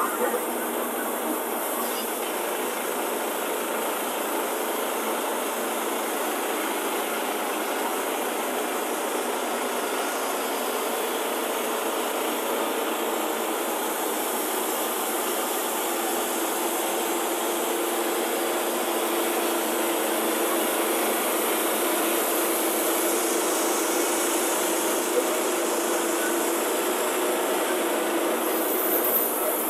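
Wood-Mizer LT10 bandsaw sawmill running steadily as its blade cuts lengthwise through a log and the saw head is pushed along by hand.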